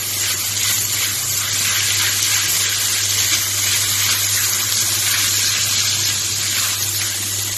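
Minced garlic sizzling steadily in hot oil in a frying pan, early in frying before it turns golden. A steady low hum runs underneath.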